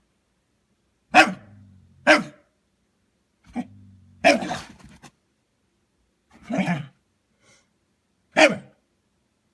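A dog barking at another dog to get it to play: about six short, loud barks at irregular spacing, the middle ones drawn out, with a low growl rumbling between the first few.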